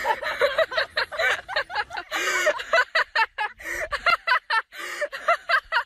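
A person laughing in quick repeated bursts, which cut off abruptly at the end.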